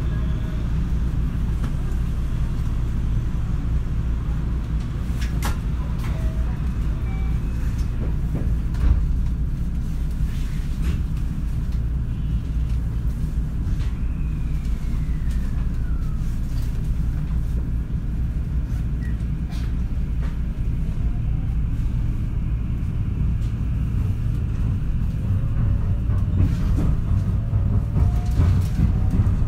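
Interior running sound of a JR West 223 series electric train, heard from its motor car: a steady heavy rumble of wheels on rail with scattered clicks and knocks, carrying the abnormal pounding of a flat-spotted wheel. A tone slides down about halfway through, and a whine rises near the end as the sound grows louder.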